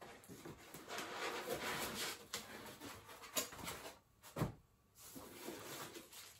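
Rustling and handling noise as the speaker's power cables and their packaging are handled, with a few light clicks and one sharper knock about four and a half seconds in.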